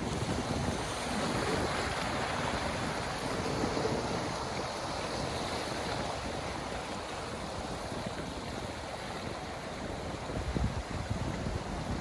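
Ocean waves washing and hissing in a steady rush that swells and eases, with wind buffeting the microphone in low gusts near the end.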